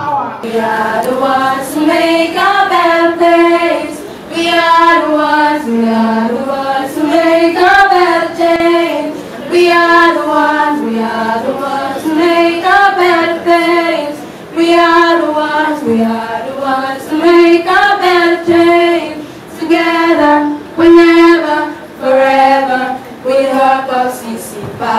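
A group of girls and young women singing one melody together into a microphone, in phrases of a few seconds separated by short breaths.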